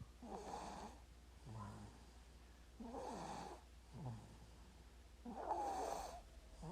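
A sleeping baby snoring softly, about three breaths in a slow, regular rhythm. Each breath is a rasping snore followed by a short, low-pitched grunt-like sound.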